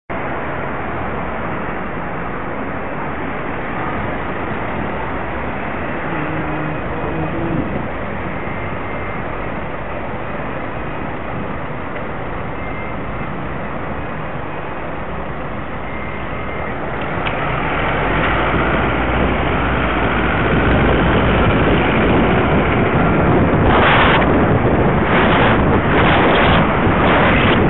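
Traffic running at a red light, heard from a cyclist's camera. A little past halfway the bike moves off and wind noise on the microphone builds, with several short wind buffets near the end.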